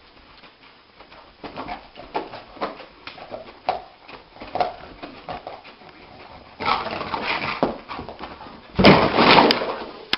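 A dog vocalizing: a run of short whimpers and whines, then two louder, longer bursts near the end.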